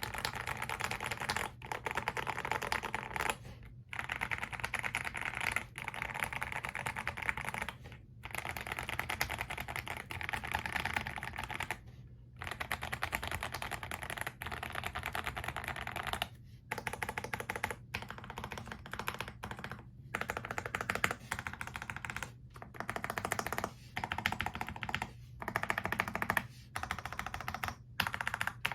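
Fast typing on a KBD67 Lite R3 mechanical keyboard fitted with hand-lubed Akko Jelly Black linear switches and knockoff GMK keycaps: a dense run of keystrokes broken by brief pauses every few seconds.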